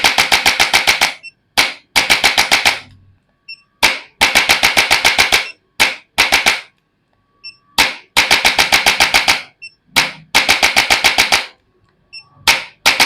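Handheld chiropractic adjusting instrument firing rapid trains of sharp mechanical clicks, about ten a second. Each train lasts a second or so, starts just after a single lead click, and repeats every two seconds or so.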